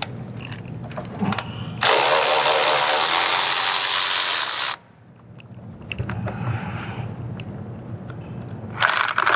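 Battery-powered Snap-on ratchet spinning a shock-mount bolt out. It runs steadily for about three seconds starting near two seconds in, with quieter handling sounds after, and gives a short burst near the end.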